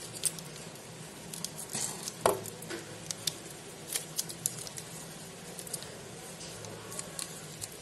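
Light crackling and scattered small clicks of thin plastic packaging film and a coiled charging cable being handled, with one sharper click about two seconds in. A faint steady low hum sits underneath.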